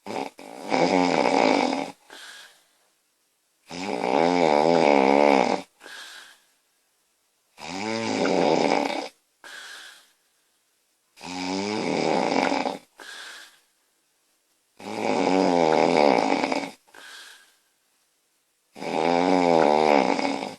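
A sleeping woman snoring loudly in a slow, regular rhythm. Six times, a long loud snore is followed by a short, fainter sound, about every three and a half to four seconds.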